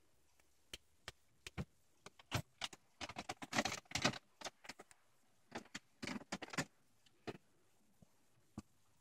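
Ferrets at play, making irregular sharp clicks and short rattling scuffles. There are two denser bursts of rattling, about three to four seconds in and again around six seconds.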